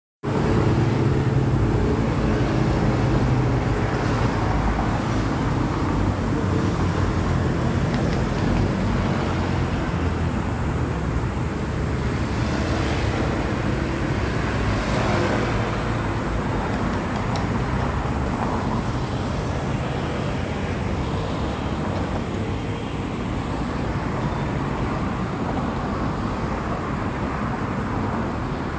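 Steady road traffic noise: a continuous low rumble of passing vehicles' engines and tyres, with no one sound standing out.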